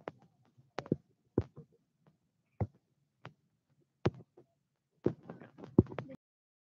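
Irregular soft knocks and clicks from walking with a handheld phone, about one every second, with a quicker cluster near the end before the sound cuts off to dead silence.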